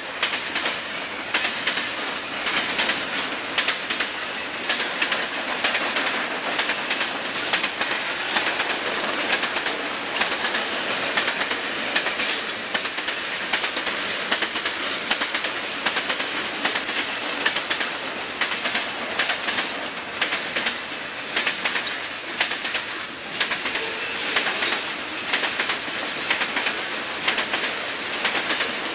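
Freight cars of a CSX train (hoppers, tank cars and boxcars) rolling past close by: a steady rumble with a rapid clickety-clack of wheels over the rail joints. A faint high wheel squeal comes and goes.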